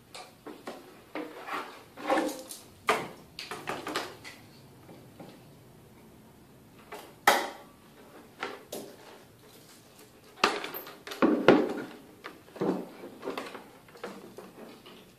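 Irregular knocks and clatters of a white plastic armor leg piece and tools being picked up, turned over and set down on a wooden worktable. The sharpest knock comes about seven seconds in, and a cluster of louder ones around the eleven-second mark.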